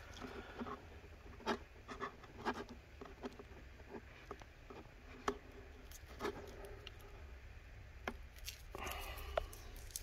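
Old display adhesive strip being peeled and picked off the aluminium frame edge of an iMac: faint scratching with scattered small clicks and ticks.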